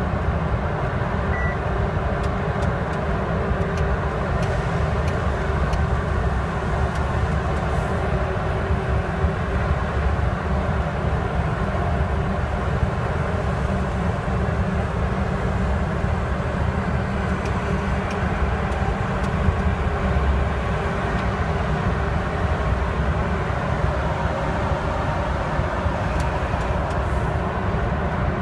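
Mercedes-Benz Axor truck's diesel engine running steadily at cruising speed, heard from inside the cab with a low, even rumble of engine and road noise.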